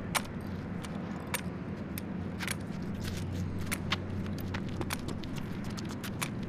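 Steady low outdoor background hum with scattered sharp clicks and ticks, a few each second.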